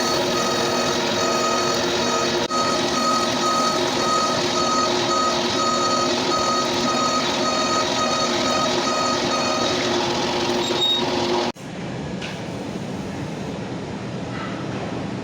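Lathe machining a metal pulley: a steady mechanical run with a high tone that pulses about twice a second. About three-quarters of the way through it cuts off abruptly to a quieter, rougher cutting noise.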